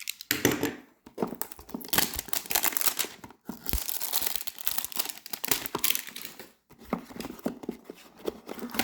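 A hanger box of trading cards being torn open by hand: packaging tearing and crinkling, a dense run of short crackles.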